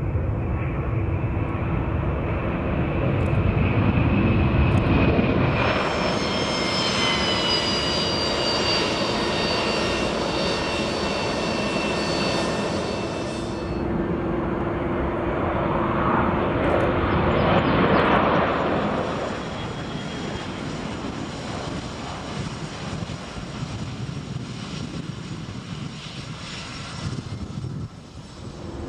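Jet airliners, among them a McDonnell Douglas MD-11 and a DC-9, taking off one after another with a loud engine roar. In one stretch a high jet whine falls slowly in pitch for several seconds. A second takeoff roar peaks about two-thirds of the way through, then the sound drops to quieter engine noise near the end.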